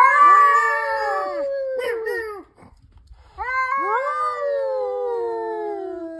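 Two cats yowling at each other in long, drawn-out, wavering calls that overlap. After a short pause about two and a half seconds in, one long yowl slowly falls in pitch.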